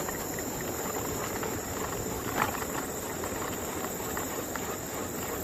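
Insects chirring in a steady high, even trill over the low, continuous noise of riding along the trail, with one brief knock about two and a half seconds in.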